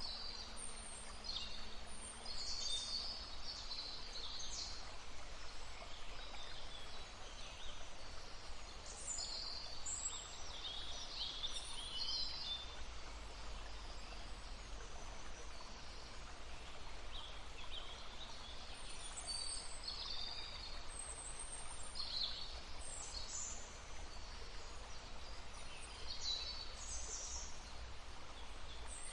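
Several songbirds singing and calling in short, high chirps and trills that come in scattered bouts, over the steady, even rush of a flowing stream.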